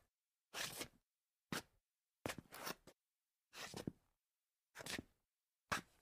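Scuffing on a tile floor: about six separate short scrapes, each a fraction of a second long, with silence between them.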